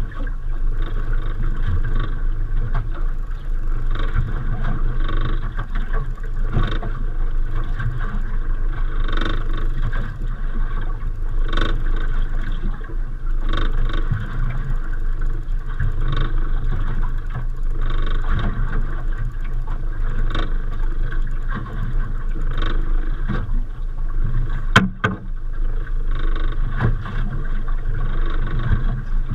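Small fishing boat's engine running steadily at low speed, a constant rumble with light irregular knocks over it and one sharp knock near the end.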